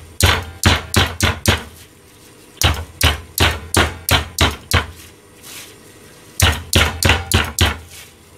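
Meat tenderizer pounding chicken breast under plastic wrap on a plastic cutting board, flattening it for cutlets. Three runs of quick strikes, about five a second, with short pauses between.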